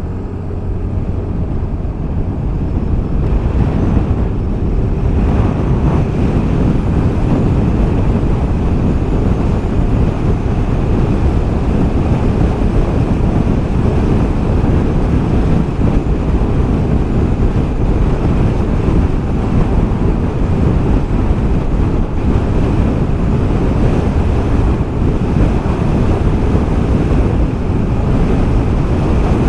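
Wind rushing over the microphone of a scooter ridden at full throttle, building over the first few seconds and then staying loud and steady, with the Yamaha Delight 125's single-cylinder engine running hard underneath as it accelerates toward 100 km/h.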